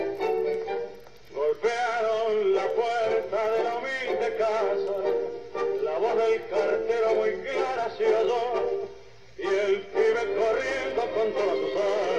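Recorded tango song, a male voice singing over the accompaniment, pausing briefly between phrases about a second in and again near nine seconds.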